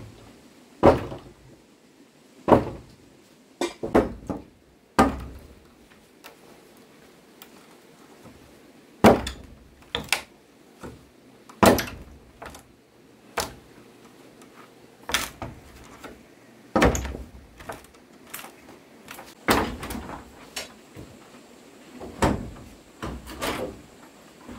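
A series of irregular hard knocks and thuds, about twenty in all, some coming two or three in quick succession and others a few seconds apart, each with a short ringing tail.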